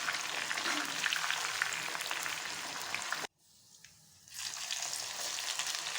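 Pieces of boiled jackfruit deep-frying in oil in a kadhai: a steady sizzle with small crackles and pops. It cuts out abruptly about halfway through for about a second, then the sizzle resumes.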